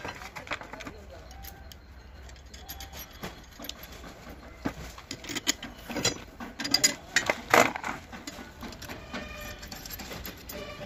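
Steel weeder blades and bolts clinking and knocking against a weeder's rotor shaft as they are fitted by hand, with a cluster of louder metal knocks about six to eight seconds in.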